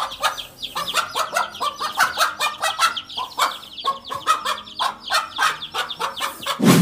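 A brood of young chicks peeping, many short falling peeps overlapping several times a second, with lower clucking among them. A louder, fuller call comes near the end.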